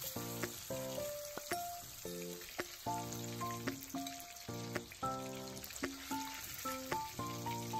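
Hilsa fish pieces frying in hot oil in a kadai: a steady sizzle, with a steel spatula clicking and scraping against the pan as the pieces are turned. Soft background music with gentle melodic notes plays over it.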